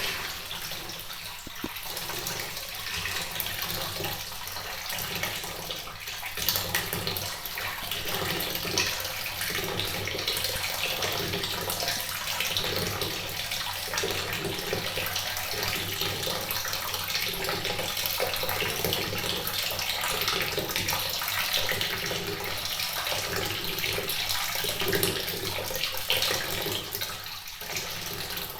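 Water sound effect: a steady rush of running water, like a tap or a filling bathtub, with a faint pulsing about once a second.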